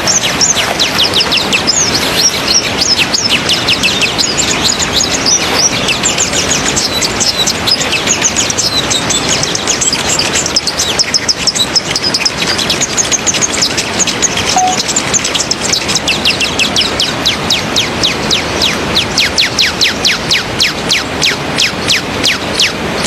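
Small birds chirping in a dense, continuous series of high, quick downward-sweeping notes that come faster, several a second, near the end, over a steady hiss.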